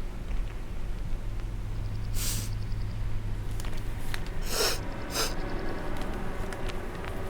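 A man's nose and breath snorting and sniffing in three short bursts, at about two, four and a half and five seconds, over a steady low hum.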